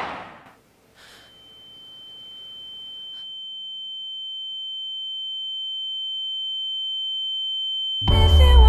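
The reverberant tail of a volley of gunshots dies away, then a single steady high-pitched ringing tone fades in and slowly grows louder: the film effect of ears ringing after gunfire. Music comes in near the end.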